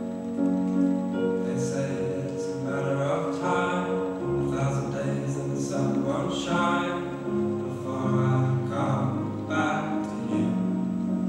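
Slow music with a singing voice over long held chords.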